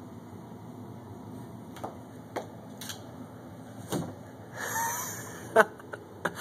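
A puppy scrambling against a door and its frame: a handful of separate sharp knocks and clicks from claws and a dangling collar tag, with a short rustling scuffle a little after the middle and the loudest knock soon after it.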